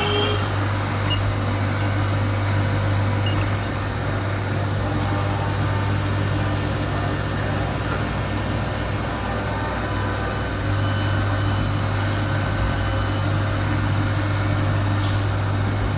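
CNC vertical milling machine with its spindle running at speed and the cutter taking a pass across the top of a metal block held in a vise. The machine gives off a steady hum with a constant high whine over it.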